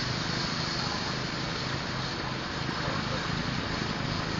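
Power trowel's small petrol engine running steadily while the machine works a concrete floor.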